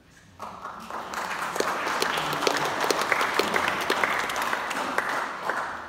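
Audience applauding. The clapping starts about half a second in, swells to a full round, and dies away near the end.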